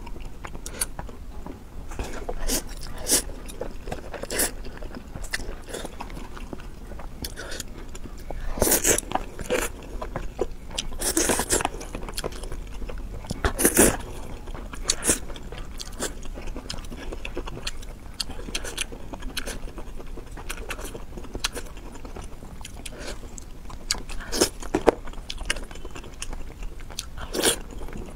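Close-miked eating sounds: a person chewing and biting food, with irregular sharp crunches and clicks and a few longer, louder mouth noises.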